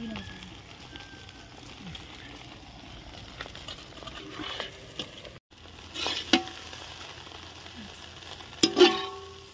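Food sizzling as it fries in a pan, stirred with a metal ladle that clanks against the pan several times, each clank ringing briefly; the loudest pair of clanks comes near the end. The sound cuts out briefly around the middle.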